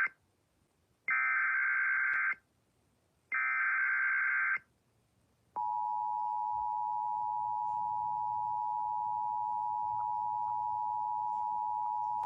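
Emergency Alert System header: two more of the three short, raspy digital data bursts about a second apart, encoding a fire warning. Then, about five and a half seconds in, the steady two-tone EAS attention signal starts and holds.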